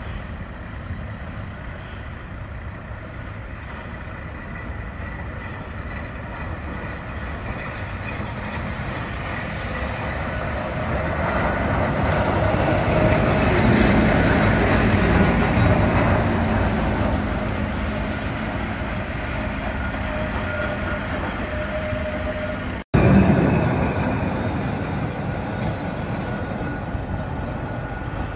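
Open-top heritage tram approaching and passing close by on street track, its running growing louder to a peak about halfway through and then fading, with a steady whine as it goes by. Near the end a cut brings in a different, louder passage of vehicle noise.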